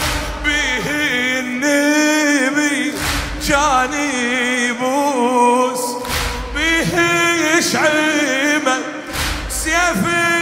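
Unaccompanied male voice chanting a Shia Muharram mourning lament (latmiyya) in long, wavering melodic lines. A deep thud, the mourners beating their chests, lands about every three seconds in time with the chant.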